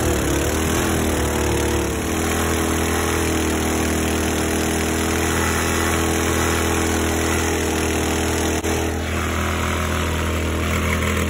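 Predator 212 single-cylinder four-stroke engine on a longtail mud motor, in stage 1 trim with a custom exhaust, air intake and rejet, running hard and pushing the boat on a 6.5-inch weedless prop. The pitch wavers for the first couple of seconds, then holds steady, and the note changes near the end.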